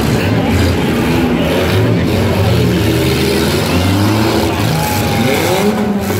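Several demolition derby cars' engines running hard at once in a loud, overlapping din. A little after four seconds in, engines rev up and down.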